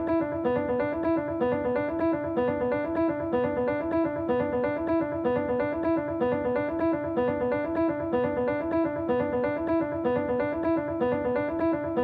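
Electronic track intro: a looping keyboard figure of short notes repeating at an even, fast pace, with no drums.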